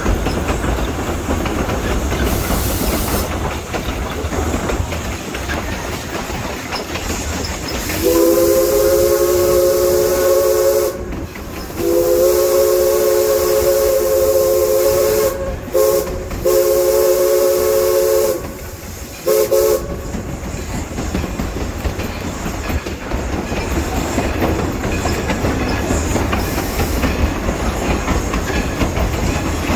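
East Broad Top Railroad steam locomotive's whistle blowing several tones at once, beginning about eight seconds in: two long blasts, a short one, a long one, then a brief final toot, with steam hissing. Underneath, the steady clickety-clack of the train's wheels on the rails.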